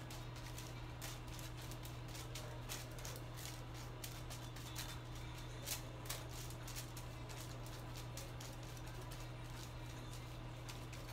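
Foil crinkling and a tint brush ticking against it as hair colour is painted onto a foiled section, giving light, irregular clicks over a steady low hum.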